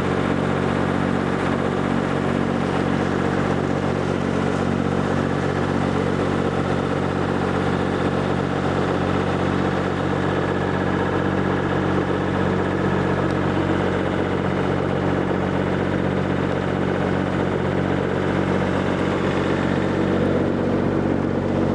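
Motorboat engine running steadily at cruising speed, heard from on board, an even drone with a hiss of wind and water over it.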